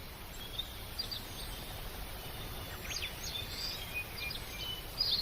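Small birds giving short, high chirps and quick down-sliding calls, scattered throughout, over steady outdoor background noise.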